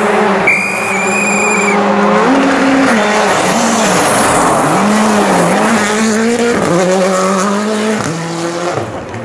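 Rally cars on a gravel stage at full throttle, the engine pitch climbing and then dropping sharply with each of several gear changes, over the hiss of tyres on gravel. A high steady whistle sounds for about a second near the start.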